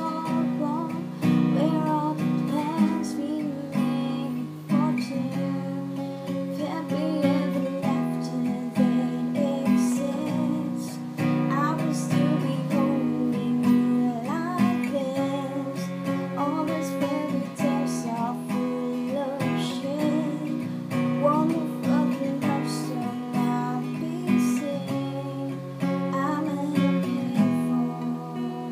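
Acoustic guitar strummed steadily, playing chords through an instrumental passage.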